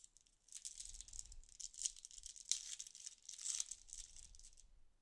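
Foil wrapper of a 2021 Bowman Chrome trading card pack crinkling as it is torn open and the cards are pulled out. The rustling starts about half a second in and stops shortly before the end.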